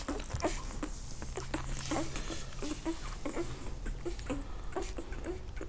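Irish wolfhound puppies suckling from their mother, giving many short squeaks and little grunts, several a second, mixed with short clicks.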